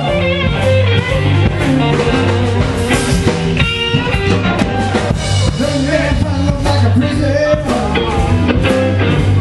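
Live blues-rock band playing loud and steady: electric guitars over a bass line and drum kit, with bending guitar notes higher up.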